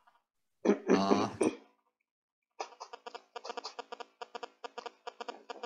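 A short vocal sound, a cough or a brief word, about a second in; then, from about halfway through, a quick run of key clicks from typing on a computer keyboard.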